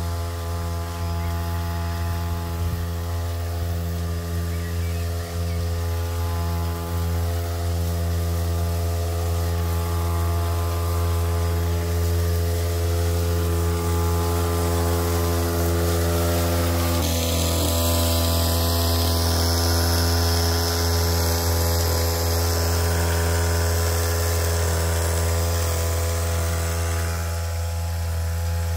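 Battery-powered backpack sprayer's electric pump running steadily, a constant buzzing hum, with a thin hiss from the spray nozzle.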